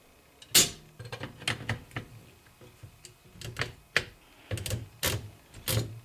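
Metal clicks and knocks from the carriage of an L C Smith Super-Speed typewriter as its platen (roller) is fitted back in: one sharp click about half a second in, then a run of irregular lighter clicks and knocks.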